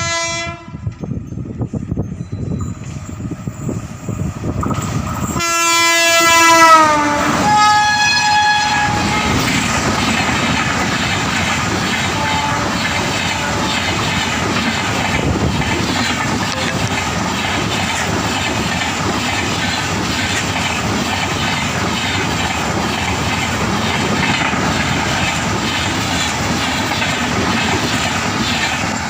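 A WAP-7 electric locomotive hauling an express train sounds its two-tone horn, a short blast at first and then a loud longer blast whose pitch drops as it passes at speed. The coaches then run past for about twenty seconds, wheels clattering rhythmically on the rails.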